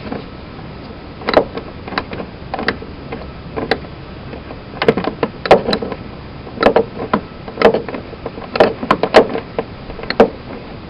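A dozen or so irregular clunks and clicks of things being handled, unevenly spaced, some sharper and some duller.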